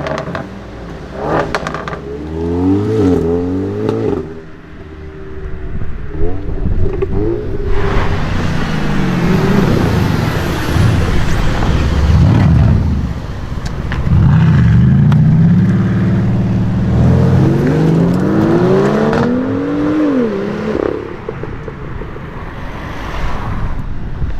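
Performance cars driving past one after another, their engines revving and accelerating, the exhaust note climbing in pitch, dropping at each gear change or lift-off, then climbing again. A few short sharp cracks.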